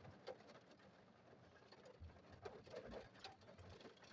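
Near silence with faint, scattered ticks and patter of rain on the car.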